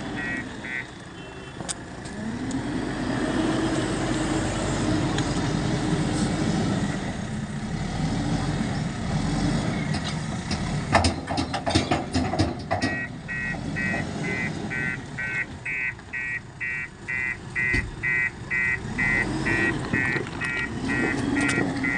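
JCB telehandler's diesel engine revving up and down as it works its bucket, with a burst of clatter about eleven seconds in as refuse drops into a tipper truck's steel bed. After that a reversing alarm beeps about twice a second.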